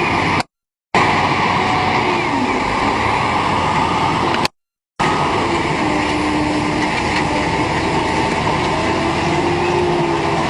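Heavy machinery of a sand screening and washing plant running steadily, a loud mechanical noise with a faint wavering engine hum. It cuts out abruptly twice for about half a second.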